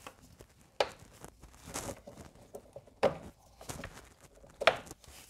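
Plastic spring clips on a Hyundai Getz's air filter housing being snapped shut by hand to lock the cover down over a new filter: three sharp clicks, about a second in, about three seconds in and near the end, with softer handling noise between.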